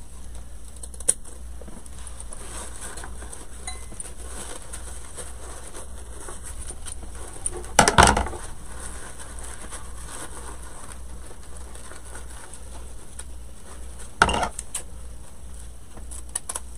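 Scissors cutting ribbon ends into dovetails: two short cuts, about eight seconds in and again about fourteen seconds in, over faint rustling of ribbon being handled.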